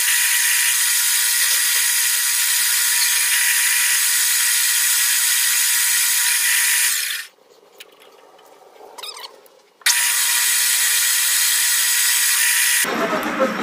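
Metal lathe spindle running while the tool takes a turning cut on a metal bar: a steady high hiss with a thin whine. It breaks off sharply about seven seconds in, comes back about three seconds later, and near the end turns to a lower, rougher sound.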